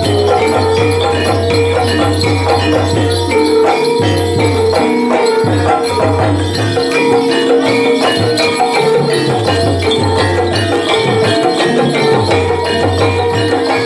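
Gamelan-style music for a kuda lumping (jaranan) hobby-horse dance, played loud and without a break: a busy pattern of short struck notes over a steady low beat, with jingling bells.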